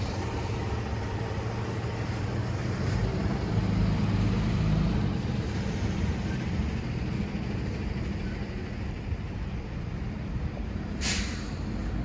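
Road traffic: a low, steady vehicle rumble that swells about four seconds in, with a short, sharp hiss near the end.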